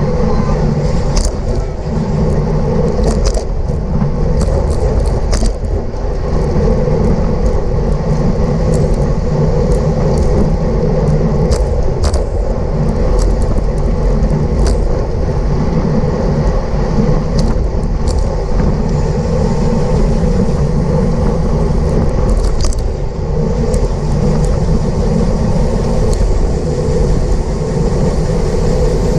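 Steady loud rumble of wind and road noise on a bicycle-mounted camera moving at racing speed, with scattered sharp clicks.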